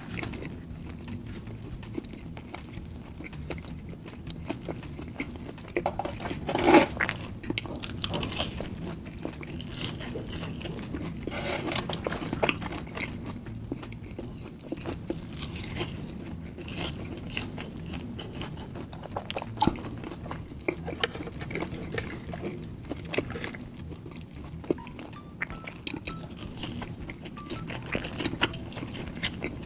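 Close-miked eating sounds: irregular bites, chewing and wet mouth clicks as fast food is eaten, with one louder bite about seven seconds in.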